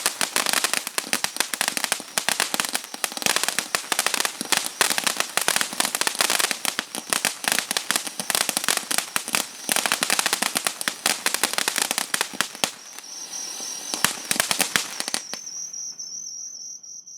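Firework fountain spewing a dense, rapid crackle of sharp pops. About thirteen seconds in it thins to a hiss with scattered pops, then dies away near the end.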